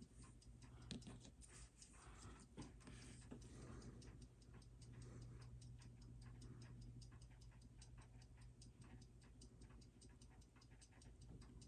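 Faint, rapid, even ticking of a timepiece, several ticks a second, over a low steady hum. There are a few louder clicks in the first few seconds.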